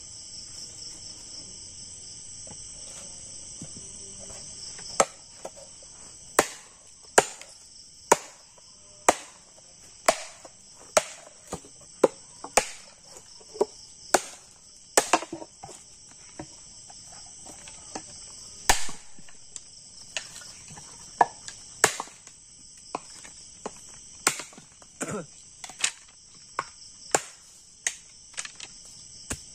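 Sharp chops of a blade into bamboo, cutting and splitting it, about one or two strikes a second beginning about five seconds in, over a steady high chirring of night insects.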